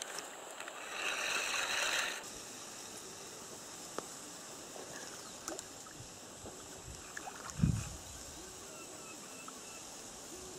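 Quiet reed-bed lakeside ambience with a steady high hiss and faint chirps. A rush of noise runs about one to two seconds in and cuts off abruptly, and a single dull low thump comes about three-quarters of the way through.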